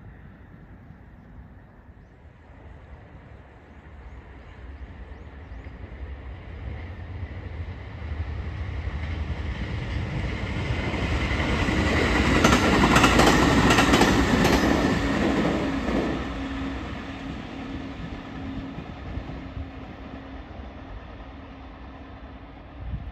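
Train approaching, passing close by and fading away, its wheels clicking over the rail joints as it goes past.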